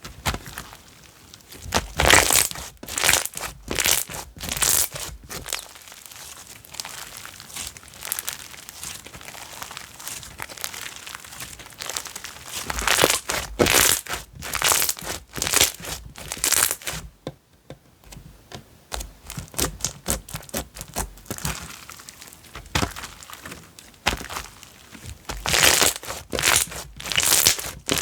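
Slime being squeezed, poked and folded by hand, giving off dense runs of crackling and clicking pops in several bursts, with quieter handling between them.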